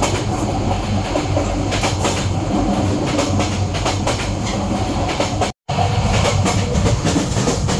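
Passenger train running at speed, heard from inside the carriage: a steady rumble with the clickety-clack of wheels passing over rail joints. The sound drops out for an instant about five and a half seconds in.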